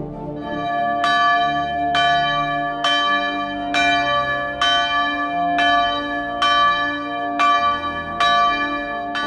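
Church bell ringing in a steady swing. It strikes about ten times, just under a second apart, starting about a second in, each stroke ringing on into the next, with music continuing quietly underneath.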